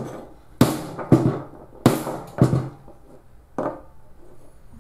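Rubber mallet whacking a mini red dot sight (Atibal MRD V2) resting on a wooden bench in an impact test of the optic. It makes five dull whacks, four about half a second apart and a lighter one after a pause, each with a short ring from the bench.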